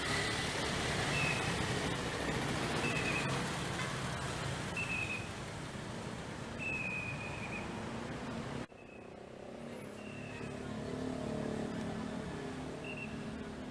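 Street traffic: motorcycle and car engines and tyre noise passing close by, with a short, high, slightly falling chirp repeating every couple of seconds. About two-thirds of the way through the sound cuts abruptly to a steadier, quieter hum.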